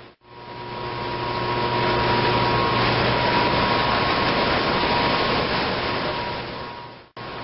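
Steady noise of a small hydroelectric plant's machine room with its nozzle-fed turbines running under water pressure, dense and even, with a faint high tone and a low hum. It fades in just after the start and cuts off shortly before the end.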